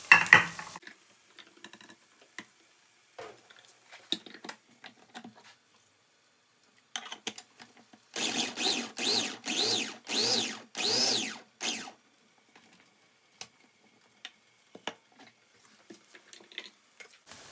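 Small Cuisinart food processor chopping tomatoes, run in about six short pulses, its motor whine rising and falling with each pulse. Before it come a brief clatter at the start and light clicks and knocks.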